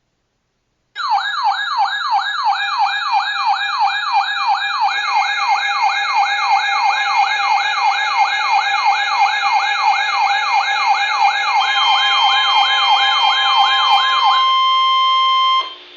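Several weather alert radios sounding their alarms for a flash flood warning at once: a loud siren-like tone rising over and over, about three sweeps a second, layered with steady high beeping tones. A steady tone joins near the end, the siren stops and the steady tones cut off together just before the end.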